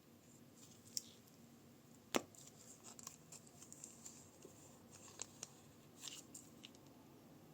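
Quiet handling sounds: a sharp click about a second in, a louder one about two seconds in, then light, scattered crackling and ticking.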